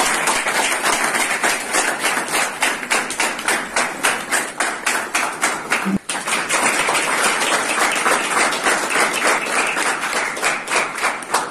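A room full of students clapping together in a steady rhythm, about four claps a second, in welcome. There is a momentary break about six seconds in.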